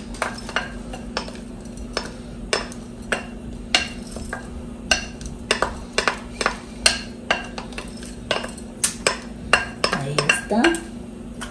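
Wooden spoon scraping and knocking against a bowl as dry lentils are pushed into a pot of broth, making irregular sharp clicks about once or twice a second.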